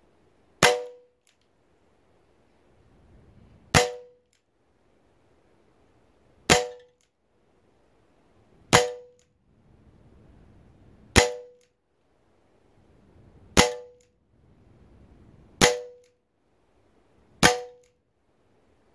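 Umarex Smith & Wesson 686 CO2 air pistol fired eight times, one shot every two to three seconds. Each shot is a sharp crack followed by a brief metallic ring as the pellet strikes the metal pellet trap.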